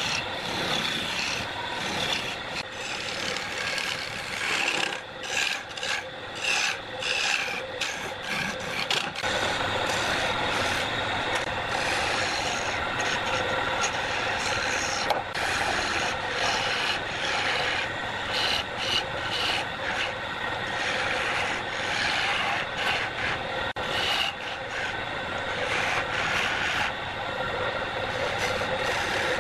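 Hand-held turning tool cutting a spinning wooden blank on a wood lathe: a continuous scraping, rasping cut with a steady hum underneath. A few seconds in, the cut comes and goes in short strokes, then runs on steadily.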